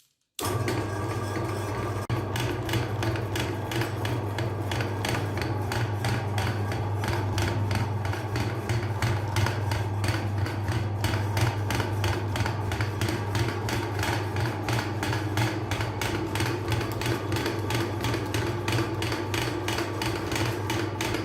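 Meat grinder running with a steady low motor hum and rapid, regular knocking, about four knocks a second.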